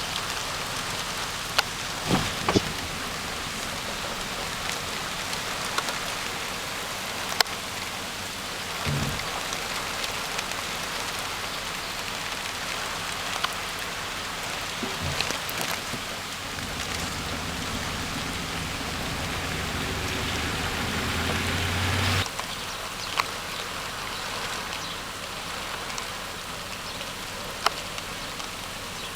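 Steady rain falling, with scattered sharp taps of single drops. A low rumble builds for several seconds past the middle and cuts off suddenly.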